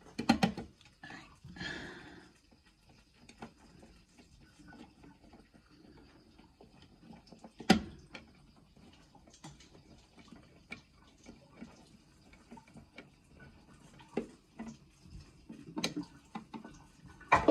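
Scattered small clicks and taps of hands working a wall light switch and its mounting screws, with one sharp click about eight seconds in.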